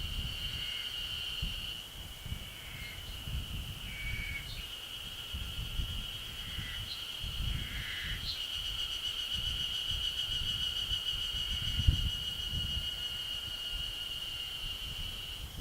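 Ezo-harusemi cicadas (Terpnosia nigricosta) singing as a steady, high, continuous chorus. A few short higher calls come through about 4 and 8 seconds in, over a low, uneven rumble.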